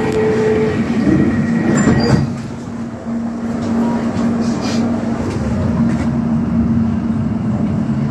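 Interior sound of a London Overground Class 710 electric multiple unit heard from inside the carriage as it pulls out: a brief clatter about two seconds in, then a steady running hum with a constant low tone over the carriage noise.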